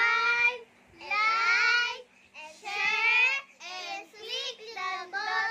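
Young girls singing a short chant together: three long drawn-out notes, then a run of quicker syllables in the last two seconds.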